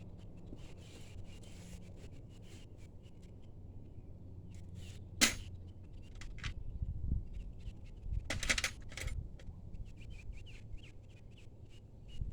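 Metal hand tools clicking and clinking on an engine as work starts on removing the upper intake plenum, with one sharp clink about five seconds in and a short rattle a few seconds later.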